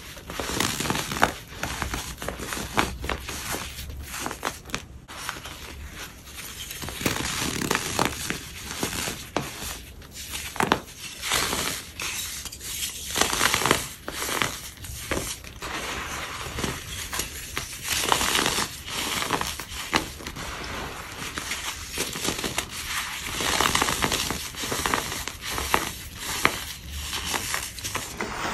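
Broken tiles of pressed powder being crushed: continuous crisp crunching and crumbling, with frequent sharp cracks.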